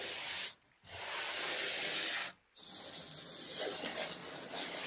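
Sanding sponge rubbed by hand along the edge of a freshly veneered wooden top, a steady hissing scrape, broken twice by short gaps. Near the end, blue masking tape is peeled off the edge.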